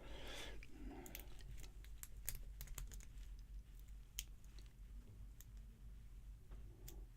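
Faint, irregular small metallic clicks of a pick and tension wrench working the pin stack of a Master Lock Pro Series 6121 padlock, pins being set one at a time during single-pin picking.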